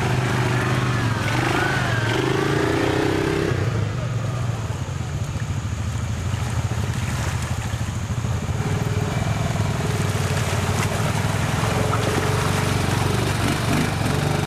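ATV engines running at low speed as the quads wade through a shallow creek, a steady low hum.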